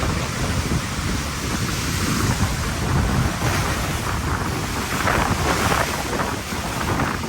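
Typhoon-force wind gusting and buffeting the microphone, a dense low rumble under a rushing hiss that swells in the second half.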